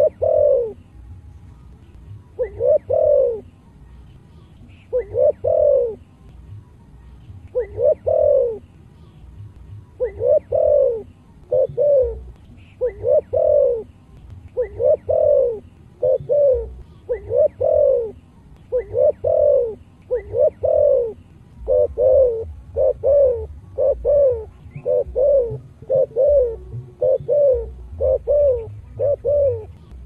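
Spotted dove cooing: repeated low coos, at first about every two and a half seconds, then coming faster, in close pairs, in the second half. A low rumble runs underneath.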